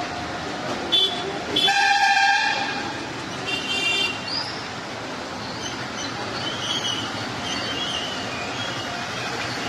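A horn sounding over a steady rumbling background: a short toot about a second in, then a longer, louder blast, and a shorter one a little later.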